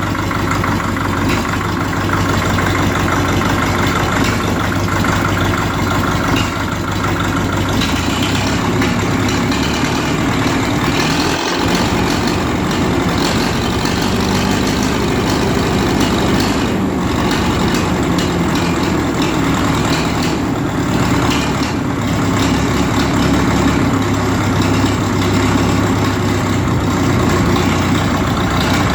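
1951 Caterpillar D4 crawler tractor's diesel engine running steadily.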